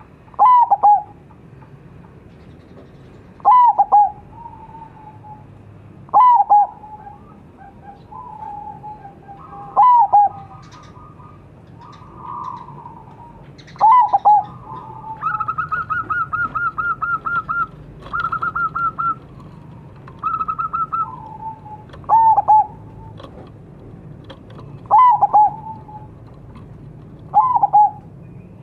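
Zebra dove (perkutut, a local Javanese 'Majapahit' bird) calling: a loud short phrase of falling notes repeated about eight times, roughly every three seconds. In the middle comes a quieter, fast run of short repeated notes.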